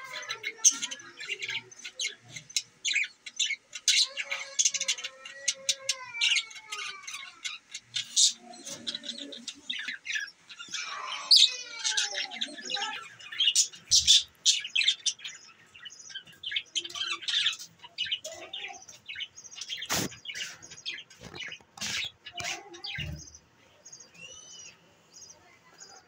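A flock of budgerigars chirping and chattering: a dense, overlapping run of short chirps and warbling calls, with a couple of sharp clicks about three quarters of the way through.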